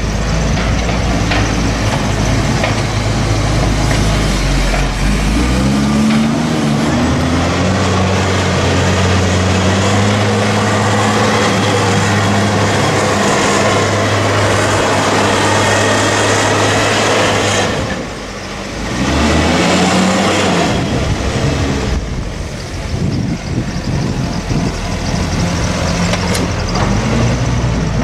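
JCB 414S wheel loader's diesel engine working on a grass silage clamp, revving up about six seconds in and running hard. It eases off briefly about two-thirds of the way through, then revs up again.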